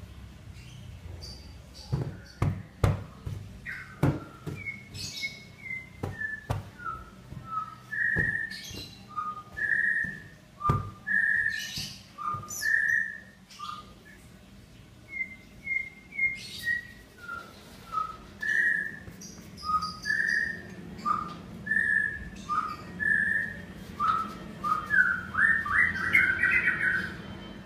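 High whistle-like notes in short falling phrases that repeat, ending in a quick rising run, with a few sharp knocks in the first half.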